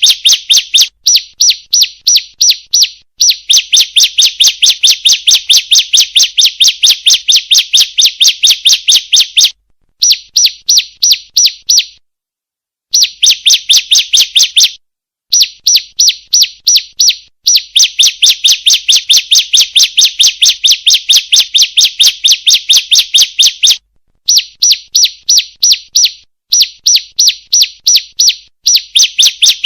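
Female ciblek (prinia) calling: a rapid, even series of sharp high chirps, several a second, in runs broken by short pauses, with a longer pause near the middle. This is the female call that keepers play as a lure to get a caged ciblek singing.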